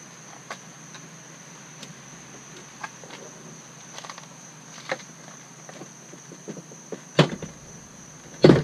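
Door panel of a Chevrolet Suburban being pried off the door: scattered small plastic clicks and snaps from the retaining clips, then two loud knocks near the end.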